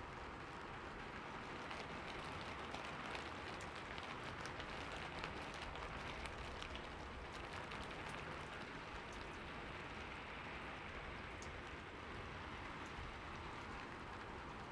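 Steady rainfall, an even hiss with many individual drops ticking through it.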